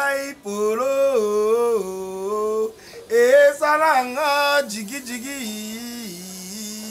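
A man singing unaccompanied, holding long drawn-out notes in a chant-like tune, growing quieter over the last two seconds.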